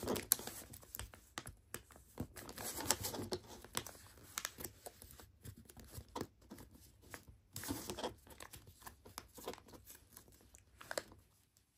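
A square of origami paper being folded and creased by hand, its corners folded to the middle: irregular, faint crinkling and rustling with short sharp crackles as the folds are pressed down, coming in a few busier spells.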